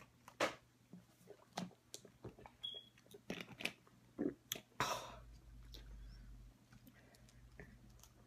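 Drinking from a thin plastic water bottle: the bottle's walls crackle in irregular sharp clicks as it is squeezed and handled, with one longer crinkle about five seconds in.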